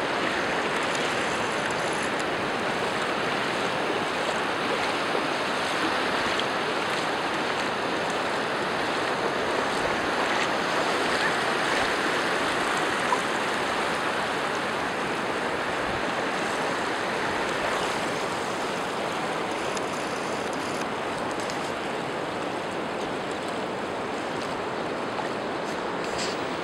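Steady wash of shallow ocean surf, a little quieter in the last third.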